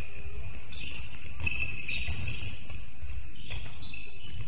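Basketball shoes squeaking on a hardwood court: a run of short, high squeaks, with a few knocks in between.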